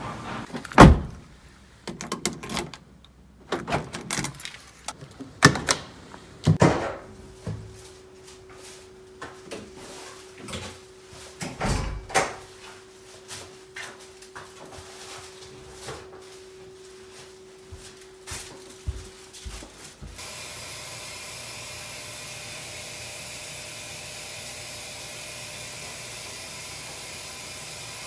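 Household handling sounds: a string of knocks and clicks, with a steady hum under them for a while. Then a steady rushing noise for the last eight seconds or so.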